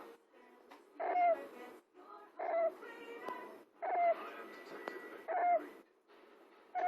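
Long-haired Syrian hamster snoring in its sleep: a short squeak followed by a breathy snore with each breath, repeating about every second and a half, five times.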